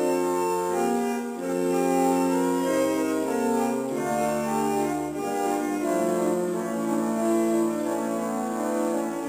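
Early Victorian tracker-action pipe organ playing a Renaissance passamezzo: several sustained voices over a bass line that steps to a new note every second or two.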